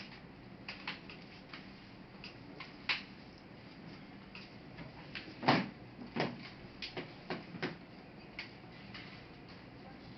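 Irregular small clicks and light knocks of laptop parts and tools being handled, the loudest a little past halfway.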